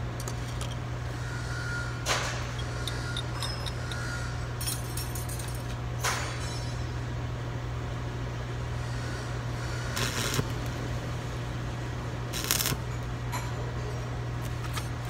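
Arc welding on a broken axle shaft: about four short bursts of crackling arc, each under a second, over a steady low hum.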